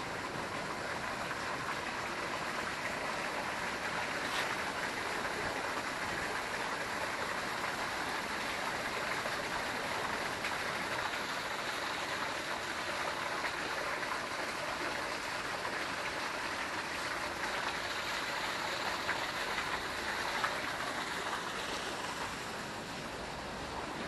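Steady rushing hiss of water falling from a thin waterfall, its flow much reduced, easing a little near the end.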